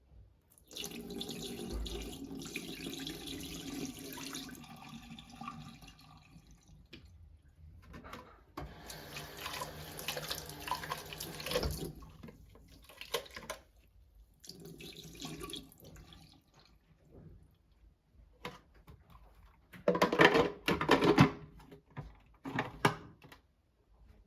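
Tap water running into a sink in three separate spells, followed near the end by a few loud clattering knocks.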